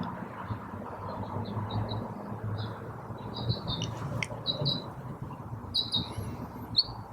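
Small birds chirping: a run of short, high chirps repeated irregularly, over a steady low background hum.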